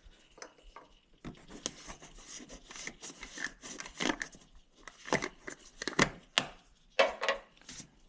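Irregular knocks, scrapes and crinkling from hands working with tools and parts during an oil change.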